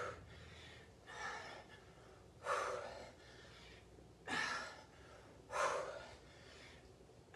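A woman's hard, breathy exhalations from exertion during dumbbell squat-and-drive reps: four short puffs, about one every second and a half.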